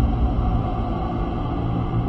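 Dark, steady horror ambience: a dense low drone with no distinct hits or changes.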